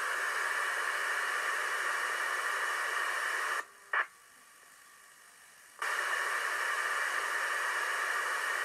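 Static hiss from a 2-metre FM radio receiver with no station talking. About a third of the way in, the hiss drops out suddenly for about two seconds, with a short tone just after the drop, then comes back.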